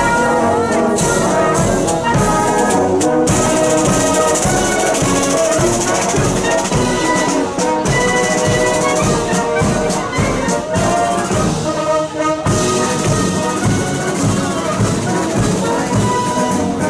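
Military marching band playing a march, led by trumpets and trombones with a steady beat underneath.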